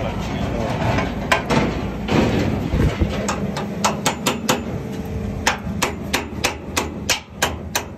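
Hammer striking the stuck steel twist-lock handle on a shipping-container chassis, sharp metal-on-metal blows to free a lock that won't turn. A few scattered strikes are followed from about three seconds in by a rapid steady run of about three blows a second.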